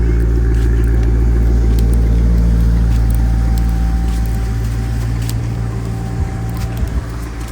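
Car driving: a steady low rumble that eases off over the last few seconds, with a couple of short thumps near the end.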